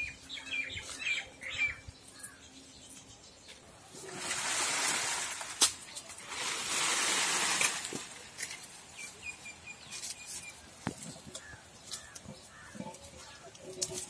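Small birds chirping now and then, over footsteps and rustling in dry leaf litter and undergrowth, with two longer, louder stretches of rustling hiss about four and six seconds in.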